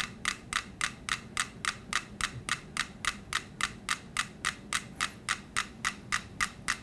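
Five clockwork pendulum metronomes ticking in unison, a sharp click about four to five times a second. The ticks land together as single clicks because the metronomes have locked into synchrony through the rolling board they share.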